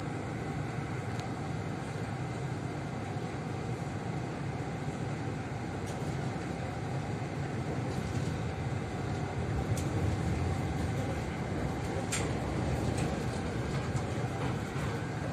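Cercanías commuter train running slowly, heard from inside the carriage: a steady low rumble with a few sharp clicks scattered through, growing a little louder about two-thirds of the way through.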